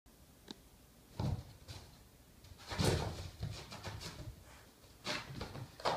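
Boston Terrier pouncing and pawing at a laser pointer dot on a rug: several irregular scuffles and dull thuds, the loudest about three seconds in.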